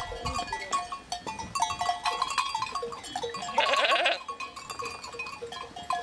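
Flock of sheep in a pen, with one loud, wavering bleat about three and a half seconds in, over small bells clinking and short scattered clicks.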